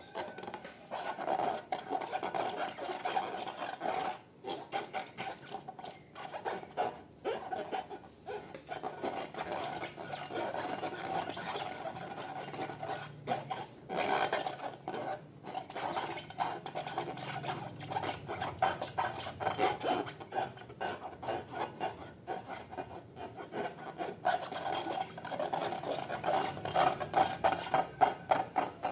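Slime being worked and squished, a continuous run of small sticky crackles and squelching rubs.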